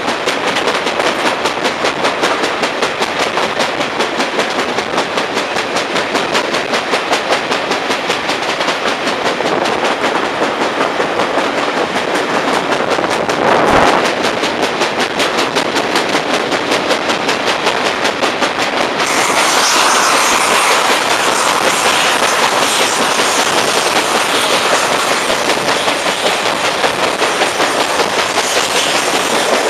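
Preserved railway carriage running at speed, its wheel flat spot knocking once each revolution in a fast, even beat over the rumble of the wheels on the rails. The rushing noise grows louder about two-thirds of the way through.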